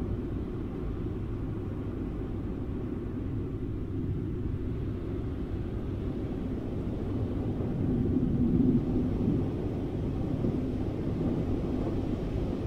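Low, steady rumble of rushing wind, swelling slightly about eight seconds in.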